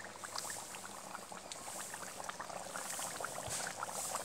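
Fish curry bubbling in a metal kadai: a steady, fine crackle of many small bubbles and pops as it simmers.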